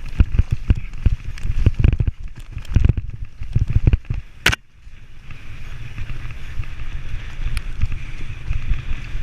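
Mountain bike rattling down a rough, rocky trail under a helmet camera, with wind buffeting the microphone as a steady low rumble. Frequent short knocks and clatters come from the bike over rocks and roots, with one sharp knock about four and a half seconds in.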